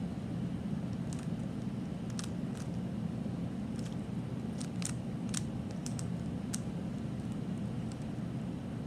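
A 3x3 Rubik's Cube being turned by hand, its plastic layers giving about a dozen short, irregular clicks, over a steady low background hum.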